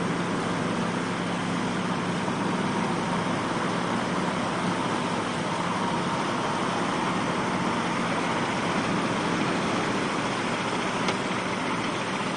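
Army truck engine running under load as the truck is towed out of the sea on a cable, over a steady wash of surf and wind. The engine drone is plainest in the first few seconds, then the surf noise dominates.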